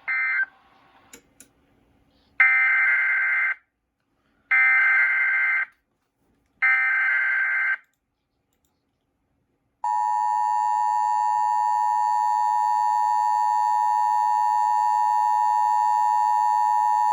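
Emergency Alert System signalling: three shrill bursts of SAME digital header data, each about a second long and about two seconds apart, then a steady, harsh two-tone EAS attention signal held for about eight seconds, the standard lead-in to a warning message.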